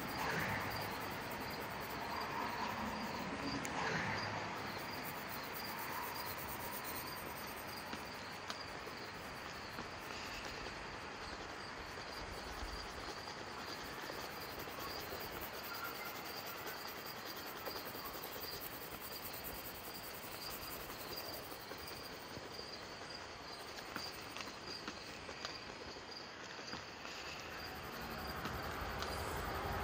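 Crickets chirping in a steady, regular rhythm over an even background hiss.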